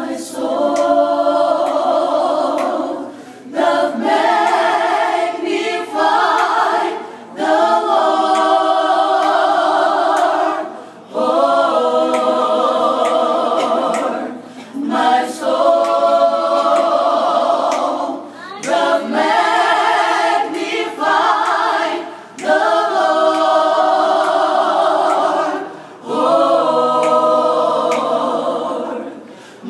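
Gospel choir of men's and women's voices singing a cappella in phrases of a few seconds each, with a brief pause for breath between phrases.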